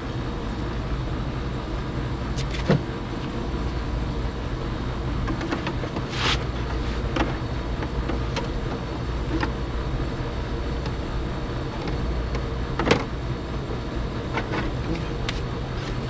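A steady low machine hum, with scattered clicks and knocks of metal parts and cables being handled on an opened window air conditioner, the sharpest about three seconds in and near thirteen seconds.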